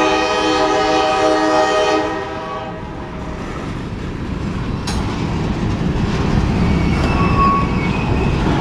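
Freight train horn sounding a long chord that fades out about two seconds in. After it comes the steady rumble and wheel noise of covered hopper cars rolling past close by, with a brief squeal near the end.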